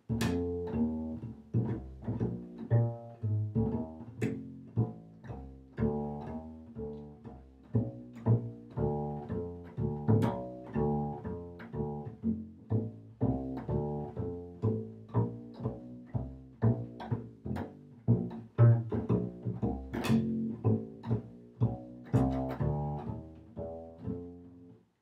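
Solo bass, finger-plucked, playing a walking swing-blues line in F, about two notes a second, for twelve bars.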